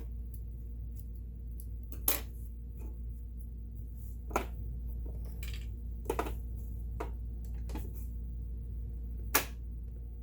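A handful of sharp, scattered clicks over a steady low hum, as the stitch-selector buttons and dial of a Kenmore 17922 electronic sewing machine are pressed and turned to pick a new stitch.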